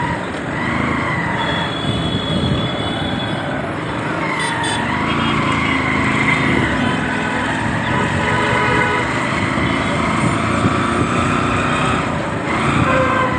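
Busy road traffic heard while riding, a steady rumble of engines and tyres with vehicle horns sounding on and off.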